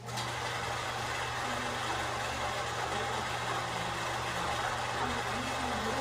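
Electric sewing machine starting up and running at a steady speed, stitching through two layers of flannel sheet.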